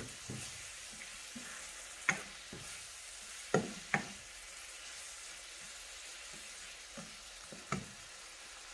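Vegetables sizzling in a frying pan as they are stirred with a spoon, with several sharp clacks of the spoon striking the pan.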